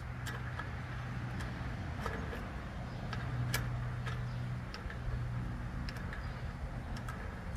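Light metallic clicks and taps at irregular intervals from a small adjustable (crescent) wrench being fitted and turned on a carburetor's 5/16 mounting bolt, over a low hum that breaks off and returns a few times.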